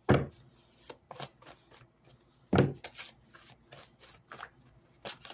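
A deck of reading cards being shuffled by hand: light clicks of cards, with two louder thumps, one at the very start and another about two and a half seconds in.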